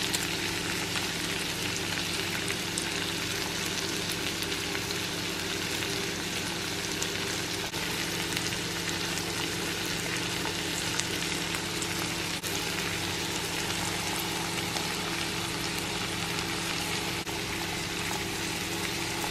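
Green beans and pork frying and sizzling steadily in a pan, with a few faint clicks and a steady low hum underneath.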